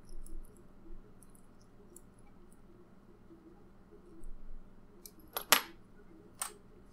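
Faint small clicks and scrapes of a tiny precision screwdriver turning a screw into a plastic tiny-whoop frame, then a few sharper plastic clicks near the end as the small quad is handled.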